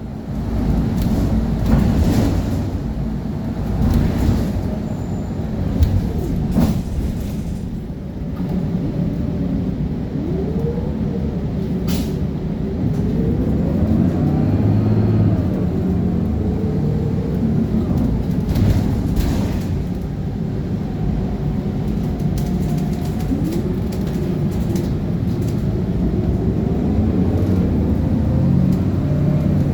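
City transit bus running with a steady low engine rumble. Over it, a whine rises and falls in pitch several times as the bus pulls away and gathers speed, with a few brief sharp clicks.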